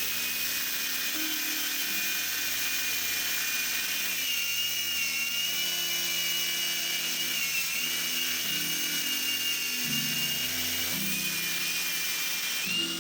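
Handheld power tool running steadily at full speed with a high whine that wavers slightly, then switched off near the end and spinning down with a falling pitch.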